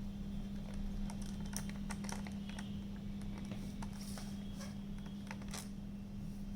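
Scattered light clicks and taps of a screwdriver and laptop plastic while the CD drive's retaining screw is worked on, over a steady low hum.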